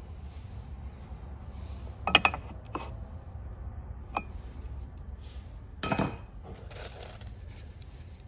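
Tools being handled against a PVC door-jamb repair piece: a sharp clatter about two seconds in, a couple of light taps, and another clatter about six seconds in.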